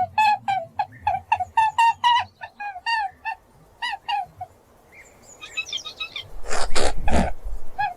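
A quick series of short chirping animal calls, several a second, each dipping in pitch. They stop about halfway through, a few higher, thinner chirps follow, and then come three loud rustling, puffing noises near the end.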